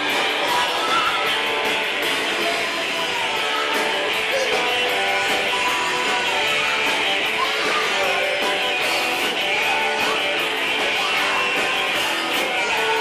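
Band music led by strummed guitar, playing steadily at a constant level.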